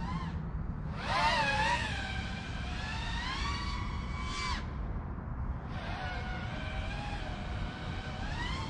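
Emax Eco II 2306 2400kv brushless motors and props on a freestyle FPV quadcopter whining in flight, heard from the onboard camera. The whine swings up and down in pitch with throttle: a loud punch about a second in that rises and holds until a little past four seconds, drops away, then climbs again near the end, over a steady low rumble of wind.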